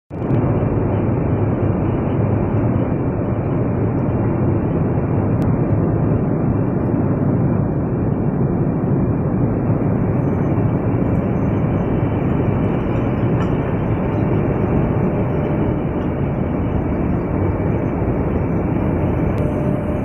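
Long industrial belt conveyor running, its moving belt and idler rollers giving a loud, steady rumbling noise with no breaks.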